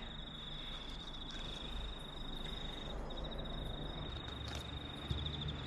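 An insect's steady, high-pitched trill, breaking off briefly about three seconds in, over faint low outdoor background noise.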